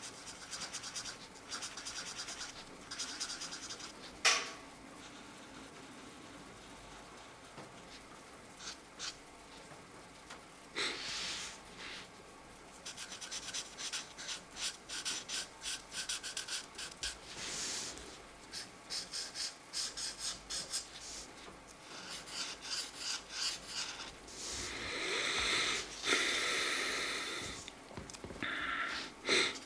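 Felt-tip markers scratching across coloring-book paper in runs of quick back-and-forth strokes, with a longer, louder stretch of rubbing near the end. A single sharp click comes about four seconds in.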